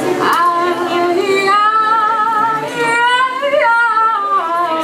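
A woman singing live into a microphone: a sustained melodic phrase of long held, wavering notes, with the acoustic guitar not being strummed.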